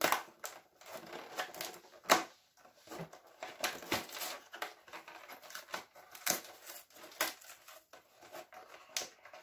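Fingernails picking and prying at a cardboard advent calendar door to open it: an irregular run of clicks and scrapes, the loudest a sharp snap about two seconds in.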